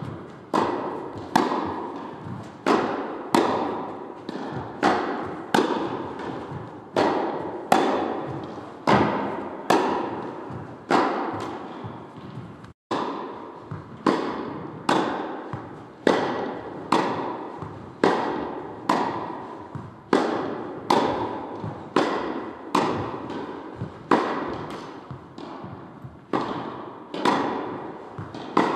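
Tennis ball struck by rackets and bouncing on the court in a long, steady rally, a sharp hit about every three quarters of a second, each echoing in a hall. The sound cuts out for an instant about 13 seconds in.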